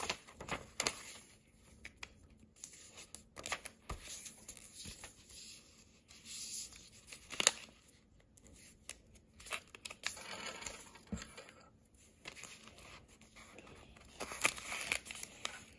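A sheet of origami paper rustling and crinkling as it is folded by hand, with fingers pressing and sliding along the creases. The sounds are faint, irregular scrapes and short crackles.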